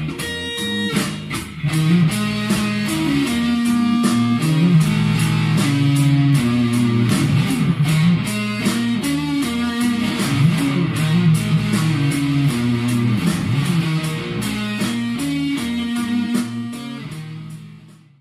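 Electric guitar playing a blues-rock riff over a steady drum beat, fading out near the end.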